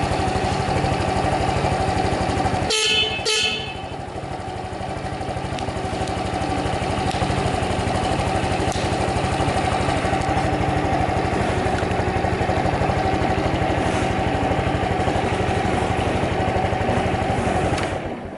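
Honda Cub 110's single-cylinder four-stroke engine idling steadily and evenly, with no abnormal noises. About three seconds in, the scooter's horn gives two short beeps. The engine cuts off at the very end.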